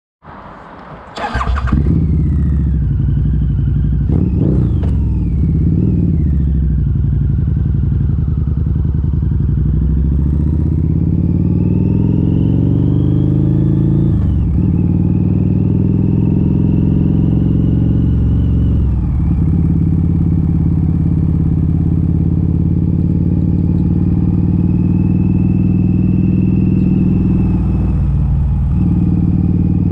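Harley-Davidson V-Rod Muscle's liquid-cooled 1250 cc V-twin running through Vance & Hines Competition Series slip-on mufflers with the catalytic converters removed, heard from the rider's seat while riding. The revs climb steadily, drop sharply with an upshift about halfway through and again about five seconds later, then hold steady at cruise with a brief dip near the end.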